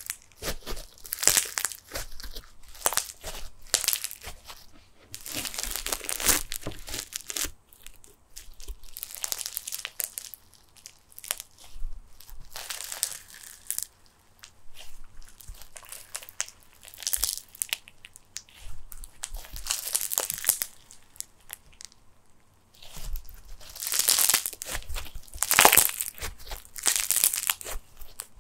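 Snow fizz slime, a glue slime packed with plastic snow granules, being squeezed, stretched and pulled apart by hand, giving irregular runs of fizzing, crackling crunch with short lulls between handfuls. The loudest crackling comes near the end.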